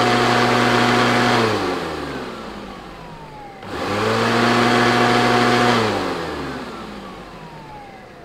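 Sebo Evolution 350 commercial upright vacuum cleaner running, switched off about a second and a half in and winding down with a falling whine, then switched on again about four seconds in, run for about two seconds and switched off to wind down once more. It is being run to check the brush roll, which doesn't sound 100%; a worn small toothed belt is suspected.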